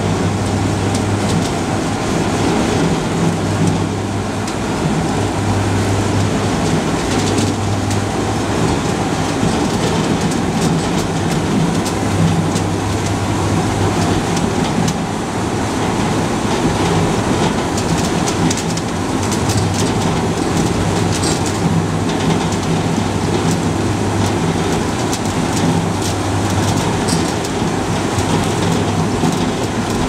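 Industrial apple washing and polishing machine running: steady mechanical noise from its geared drive motors and rollers with a low hum, water spraying from the nozzles, and apples knocking as they tumble out onto the conveyor belt.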